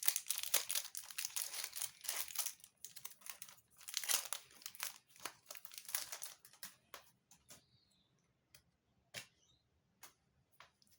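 Foil wrapper of a Pokémon booster pack being torn open and crinkled, with a burst of crackling about four seconds in. It thins out to scattered short rustles and clicks of cards being handled.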